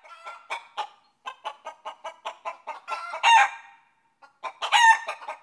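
A chicken clucking in quick runs of short clucks, about four to five a second, broken by louder drawn-out calls about three seconds in and again near the end.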